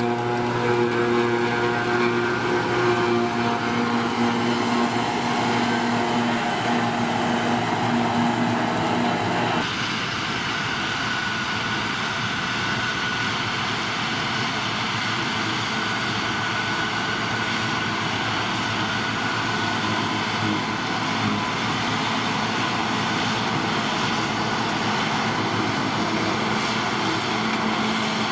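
John Deere self-propelled forage harvester running steadily as it picks up and chops a row of grass. About ten seconds in this gives way to a tractor-drawn trailed forage harvester at work, a denser running sound with a high steady whine over it.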